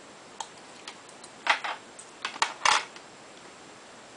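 Irregular light clicks and clacks of small laptop parts being handled, about eight in the span, the loudest in the middle. The parts are the screen panel and its metal side frames, handled during a screen swap.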